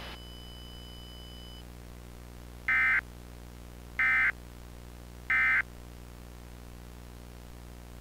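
Three short Emergency Alert System end-of-message data bursts, the raspy two-tone digital SAME code, each about a third of a second and about a second and a half apart. They mark the close of the alert. Under them runs a steady hiss and hum of weather-radio static.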